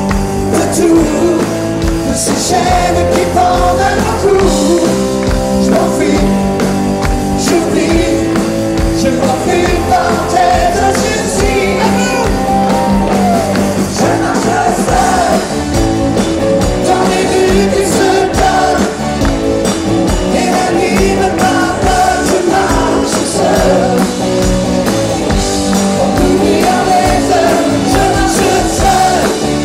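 Rock song with singing over a band, playing steadily throughout.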